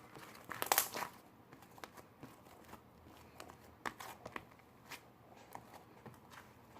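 Light handling noises: a quick cluster of crinkling rustles and clicks about a second in, then scattered single clicks and taps.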